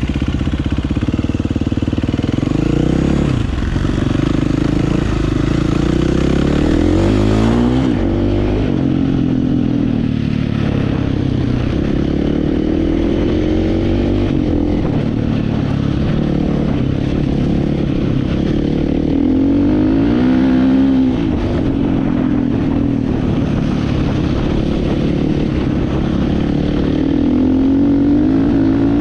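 Dirt bike engine revving up and down over and over as it is ridden through mud.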